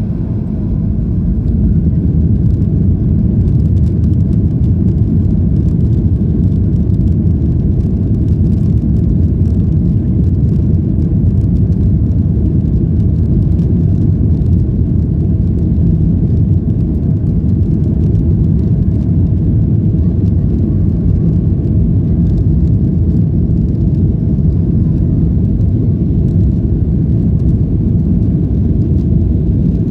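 Boeing 737-800's CFM56-7B jet engines at takeoff thrust, heard inside the passenger cabin during the takeoff roll. It is a loud, deep rumble that swells over the first couple of seconds and then holds steady.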